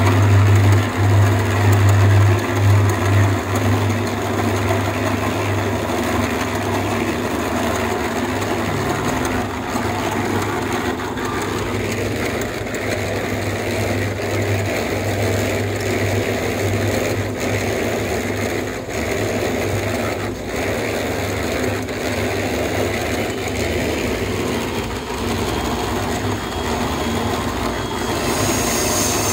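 Construction-site machinery running steadily, with a low motor hum; the sound shifts slightly about a third of the way in and again near the end.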